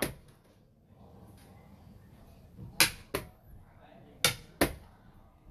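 Xiangqi pieces clacked down on a wooden board and chess-clock buttons slapped: sharp clicks in two quick pairs, one move and clock press after another in a fast endgame.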